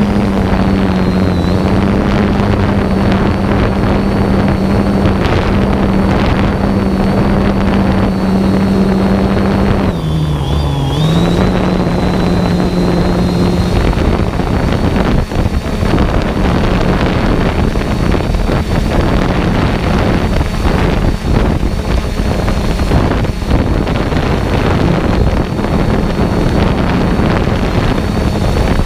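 A motor running at a steady speed, its hum and high whine dipping briefly in pitch about ten seconds in before settling back, with wind buffeting the microphone.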